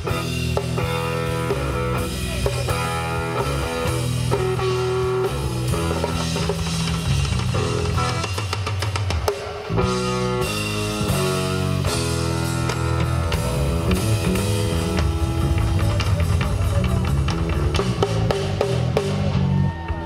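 Live rock band playing: electric bass and electric guitar lines over a full drum kit, with bass drum and cymbals. The music drops out briefly about halfway through, then comes back in.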